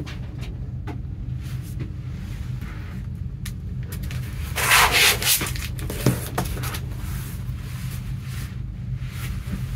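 Clear plastic sleeve on a vinyl LP jacket crinkling and rubbing as hands handle the record and turn it over. The rustle is loudest about halfway through, with a few light taps and scuffs, over a steady low hum.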